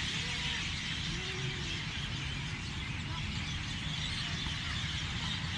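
Many birds chirping and singing at once in a dense, steady chorus, over a low background rumble.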